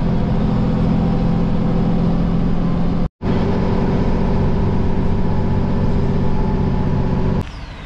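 Bus engine and road noise droning steadily inside a moving bus. It breaks off for a moment about three seconds in, and near the end gives way to quieter sound.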